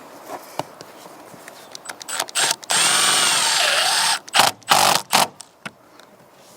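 Power drill run in several short trigger bursts, with one longer run of about a second and a half in the middle whose motor pitch dips under load and recovers.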